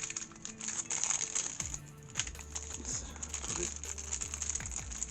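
Background music, with light clicks and crinkling of small parts and packaging being handled on a desk.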